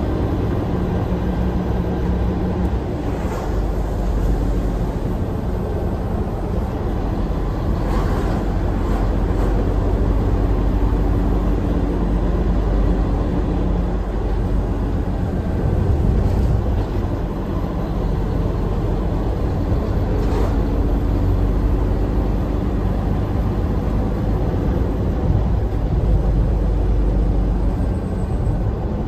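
Steady engine and road rumble heard inside the cab of a Hino Profia semi-trailer tractor on the move, with a few light knocks.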